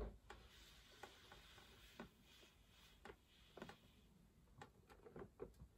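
Near silence: quiet room tone with faint, irregular clicks and taps, about one or two a second, from hands handling a large cardboard gift box.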